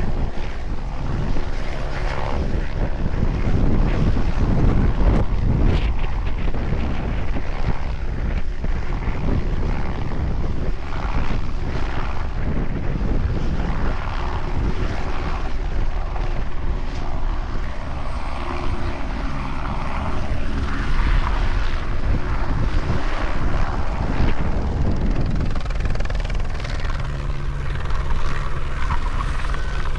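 Helicopter rotor and engine running steadily, the low rotor drone growing stronger at times, with wind noise on the microphone.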